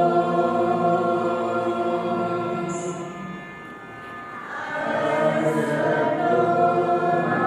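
A crowd of students singing a prayer together in unison, holding long, drawn-out notes. The singing fades into a brief dip between phrases a little past halfway, then swells back in.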